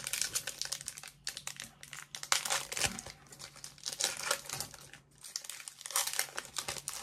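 Foil wrapper of a Pokémon TCG booster pack crinkling and tearing as it is opened, in quick irregular crackles with a brief pause about five seconds in.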